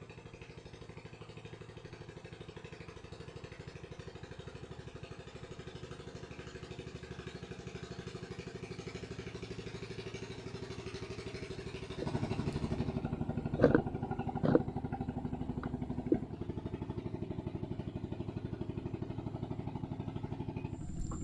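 Small boat's motor running steadily, then throttled up and louder about twelve seconds in, with three sharp knocks soon after.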